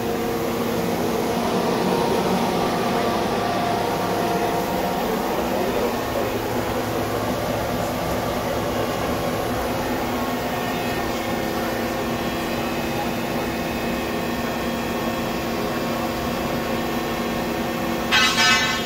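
Mazak SQT 18MS CNC turning center running its part program: a steady machine hum with several steady tones. Near the end, a short high-pitched sound rings out for about half a second.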